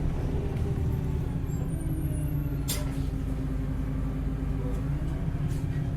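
Heuliez GX317 LPG city bus heard on board, its drivetrain running with a steady low drone. A short, sharp hiss of compressed air is heard about three seconds in.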